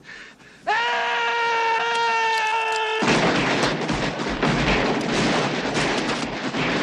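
A man's long yell, held on one pitch for about two seconds. About three seconds in it is cut off by a dense volley of revolver shots from several guns firing together.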